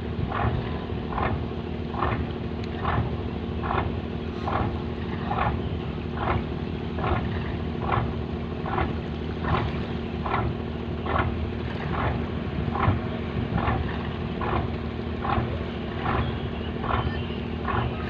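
Fishing boat's inboard diesel engine running steadily, with a regular pulsing beat a little faster than once a second over a constant low hum.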